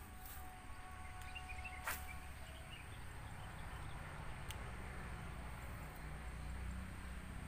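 Spinning reel being cranked to retrieve a cast lure, a faint low whirr under quiet rural ambience with a few bird chirps. One sharp click comes about two seconds in.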